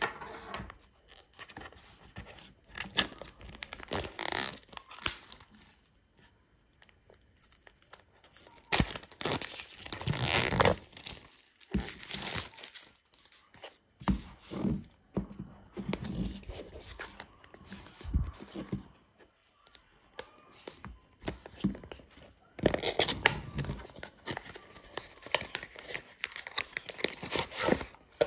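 Close-up unboxing sounds: plastic wrap on a cardboard box being cut and torn off, the box handled, and a plastic bag crinkling, in irregular bursts of tearing and rustling with a few light knocks.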